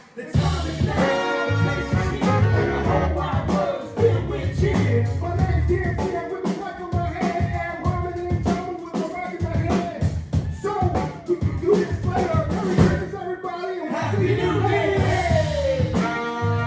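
Live band music with brass, drums and singing, played with a steady beat.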